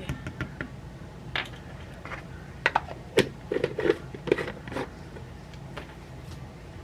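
Scattered light clicks and knocks of small objects being handled, busiest in the middle, over a low steady background hum.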